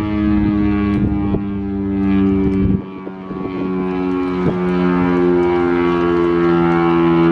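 Federal Signal STL-10 outdoor warning siren sounding its steady full-alert tone: several steady pitches held together like a chord, swelling and fading as the rotating head turns. The level dips for a moment about three seconds in.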